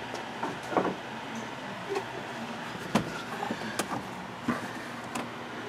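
Ford Focus ST's hard plastic intake air duct being worked back into place by hand, giving a handful of scattered sharp plastic clicks and knocks over a faint steady hum.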